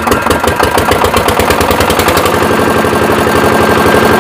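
Single-cylinder 'dompeng' diesel engine, hand-cranked to drive a belt-driven welding generator, running just after starting. Its rapid, even exhaust beats settle into a steady run about two seconds in.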